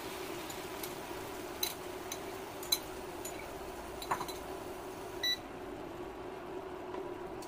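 Teriyaki sauce bubbling and crackling around chicken breasts in a nonstick frying pan, with scattered sharp pops over a steady hum. About five seconds in there is a short beep, and after it the high crackle thins out.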